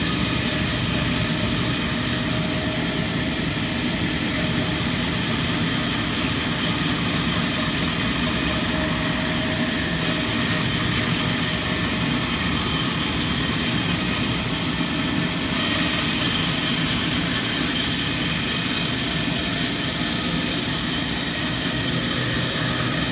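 Sawmill machinery running steadily: a loud, continuous mechanical drone with a hiss on top that thins out briefly a few times.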